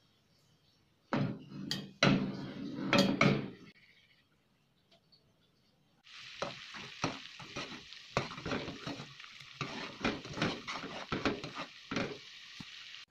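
Stainless steel skimmer and ladle scraping and clinking against a pot while tapioca pearls are stirred, loudest in the first few seconds. From about six seconds in, a pot of water with boba pearls at a rolling boil bubbles steadily, with small knocks of the ladle against the pot.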